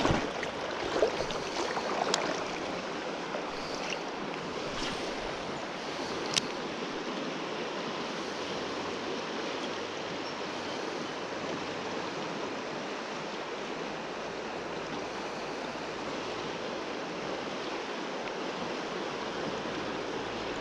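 Steady rush of river current flowing over a shallow riffle, with a few light clicks in the first few seconds and one sharp click about six seconds in.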